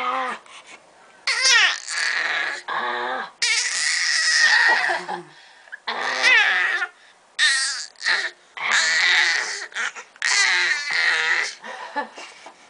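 A young child making loud, raspy, throaty monster noises: screechy growls in bursts of about a second each, sliding up and down in pitch, with short pauses between them.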